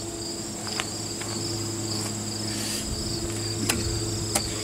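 Insects chirring steadily at a high pitch, over a low steady hum, with a few faint clicks.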